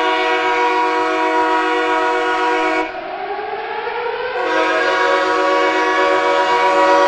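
Ice hockey arena goal horn blaring a long, steady chord-like blast. About three seconds in, the blast breaks off into a rising wail, then a second long steady blast begins.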